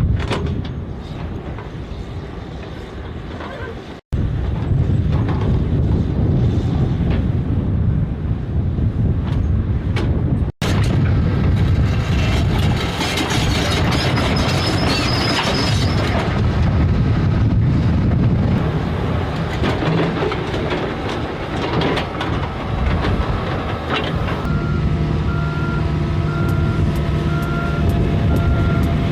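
Diesel engines of tracked earthmoving machines working under load, with the steel crawler tracks clanking and rattling. The sound cuts out for an instant twice. A reversing alarm beeps steadily near the end.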